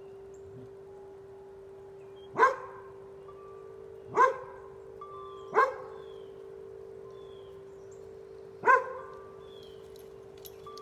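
A dog barking four times, in short single barks a second or more apart, over large wind chimes holding a steady low ringing chord.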